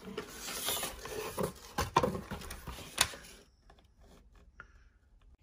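A cardboard subscription box being opened and handled: rustling and scraping of the lid and packaging with a few sharp clicks, for about three and a half seconds, then only faint ticks.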